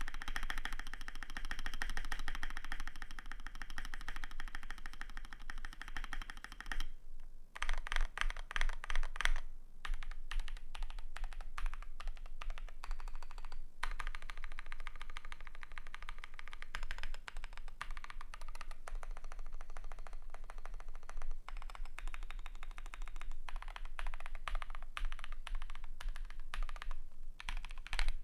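Continuous typing on a custom KBD75 v3.1 mechanical keyboard with lubed Gazzew Boba LT switches, a polycarbonate plate and Akko Neon ASA keycaps: a dense run of key clicks. There are brief pauses about 7 and 14 seconds in, and a louder, faster flurry of keystrokes around 8 seconds in.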